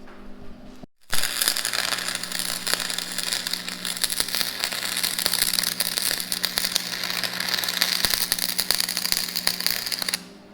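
Electric arc welder crackling and sizzling as a weld is run, building up metal on a broken bolt to get it out. It starts abruptly about a second in and stops sharply near the end.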